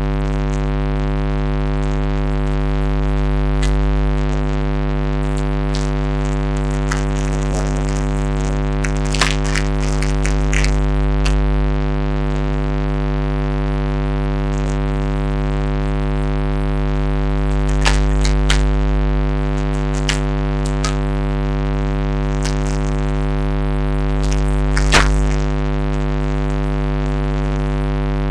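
Steady electrical hum with many overtones, unchanging throughout. Scattered clicks and short noisy bursts stand out over it, clustered about nine to eleven seconds in, around eighteen seconds, and once more sharply about twenty-five seconds in.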